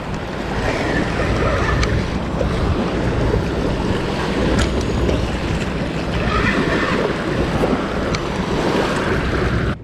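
Wind rushing on the microphone and small waves washing onto a sandy shore, with a hooked catfish splashing in the shallow surf. The sound cuts off abruptly near the end.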